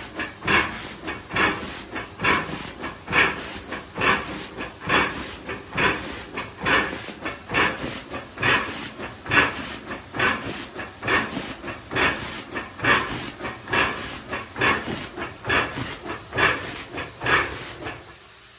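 2011 IMA CD180 filling machine cycling, with short bursts of compressed-air hiss in a steady rhythm: a louder puff about once a second and weaker ones between. The bursts stop just before the end.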